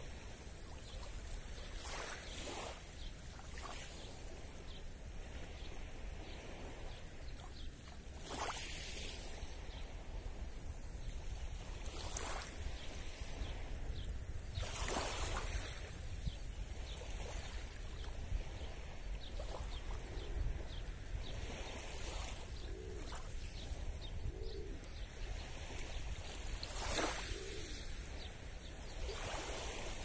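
Small waves of a calm sea lapping and washing onto the shore, a soft swell of wash every few seconds over a steady low rumble. Faint, low cooing bird calls come in now and then in the second half.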